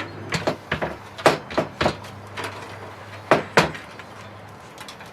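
Irregular clicks and knocks of front-panel cables and small connectors being handled against a small metal computer case. They are loudest about a second in and again a little past three seconds.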